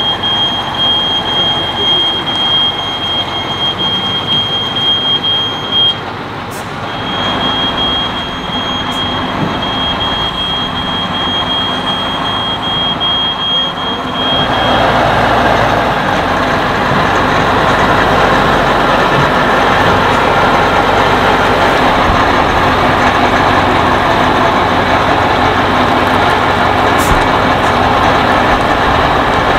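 Tatra 815 truck's diesel engine running under load as it tows an Ikarus 435 articulated bus, with a steady high-pitched squeal through the first half. From about halfway the engine is louder and fuller as the truck pulls close.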